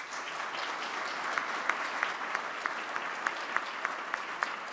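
Audience applauding, with one close pair of hands standing out in sharp claps at about three a second.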